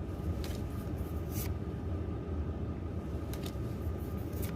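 Pokémon trading cards being slid one by one across the stack by hand, a few short crisp swishes over a steady low hum.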